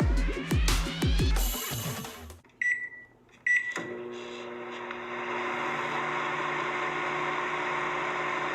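Electronic dance music with a heavy kick drum, cut off about two seconds in. Then two short microwave oven beeps, followed by the steady hum of a microwave oven running.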